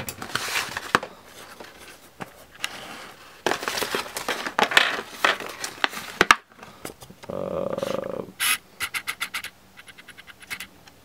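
Rustling and scraping of a glue tube's cardboard backing card and plastic packaging being handled, in several scratchy bursts with sharp clicks, a short steady hum near the middle and a quick run of small clicks after it.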